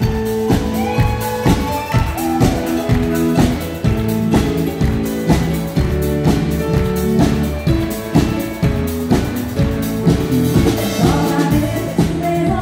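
Live country band playing with a steady drum beat, bass and guitars; a woman starts singing near the end.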